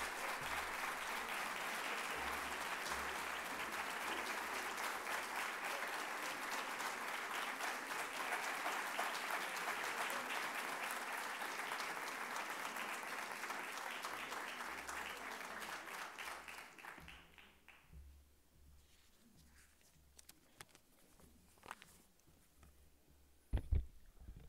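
Audience applauding steadily, dying away after about seventeen seconds. Then near quiet, broken by a few faint knocks and a louder pair of knocks near the end.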